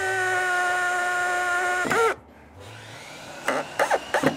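Cordless drill driving a screw up through a timber nog into plywood flooring, its motor whining at a steady, slightly sagging pitch under load before stopping about two seconds in. A few short sharp sounds follow near the end.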